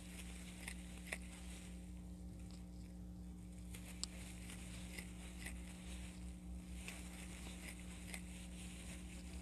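Crochet hook working yarn: faint, scattered small clicks and rustles as double crochet stitches are made, over a steady low hum.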